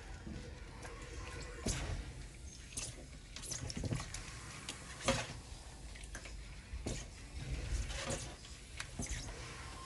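Wet kitchen handling sounds while preparing squid: scattered small clicks and soft knocks with a little water.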